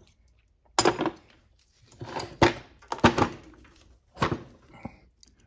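Handling noises: about five clunks and knocks as the engine case is shifted and turned on the workbench.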